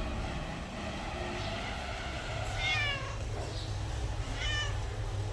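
Domestic cat meowing, with two short calls that fall in pitch about halfway through and near the end, over a steady low rumble.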